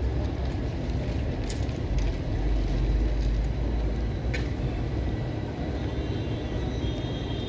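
Passenger train of Indian Railways coaches rolling past: a steady rumble of steel wheels on the rails, with a couple of sharp clicks.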